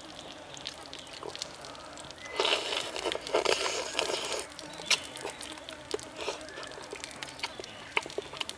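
Wooden chopsticks clicking and scraping against a clay pot while stirring dipping sauce. About two seconds in comes a louder, breathy noise close to the microphone lasting about two seconds, as the person leans right over the pot.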